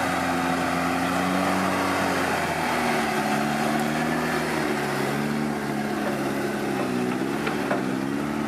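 Off-road 4x4 trial vehicle's engine running at low revs, its pitch rising and falling gently as the throttle is worked.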